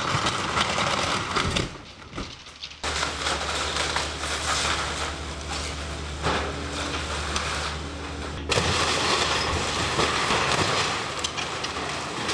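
Diesel engine of a tracked excavator running steadily while its arm tears into a wooden building, with timber cracking, splintering and crashing down. The sound changes abruptly twice, about three and eight and a half seconds in.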